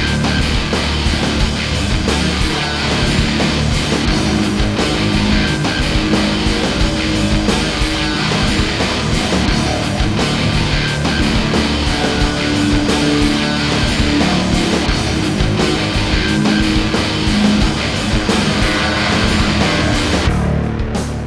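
Loud rock music with guitar, heavy-metal style, playing steadily; the treble drops away briefly near the end.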